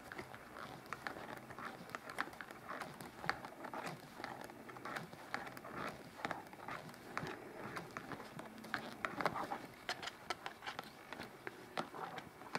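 Knitting needles clicking lightly and irregularly while a row of knit stitches is worked.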